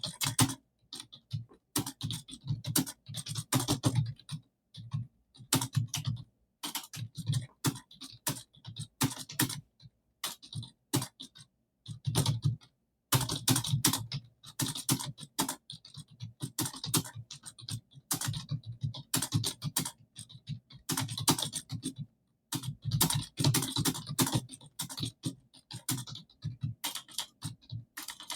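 Fast touch-typing on a computer keyboard: keys clacking in rapid runs, broken by short pauses of about half a second.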